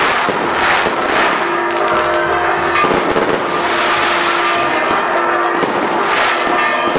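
Aerial fireworks shells bursting and crackling without a break, with loud surges of bursts every second or two. Steady held tones sound underneath.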